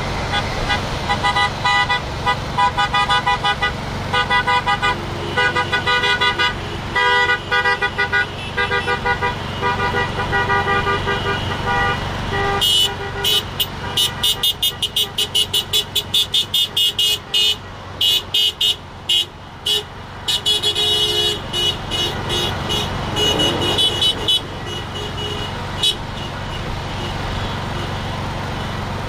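Car horns honking in repeated beeps from a passing line of cars, over a steady traffic hum. From about twelve seconds in, a higher-pitched horn beeps in fast runs of several beeps a second.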